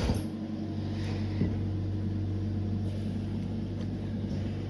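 Steady low electrical hum, with a faint click about a second and a half in.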